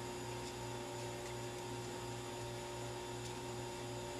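Steady electrical mains hum with a faint hiss. The quiet kneading of the epoxy putty adds no distinct sound.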